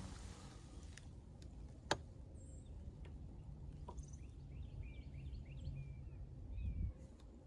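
Small birds chirping in short, quick calls over a low steady rumble, with one sharp click about two seconds in.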